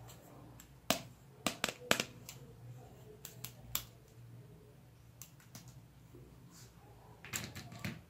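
Light plastic clicks and taps from a pair of toy safety glasses being handled and unfolded, with a quick cluster of clicks near the end as they are set down on the table.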